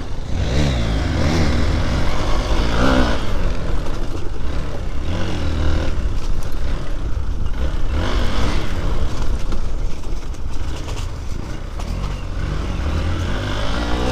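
Dirt bike engine revving up and down as the throttle is worked over a rough, rocky trail. A heavy low wind rumble runs underneath on the microphone.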